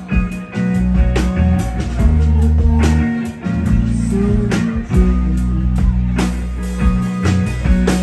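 Live rock band playing: electric bass guitar, electric guitar and drum kit, with the bass notes loudest and steady drum hits several times a second.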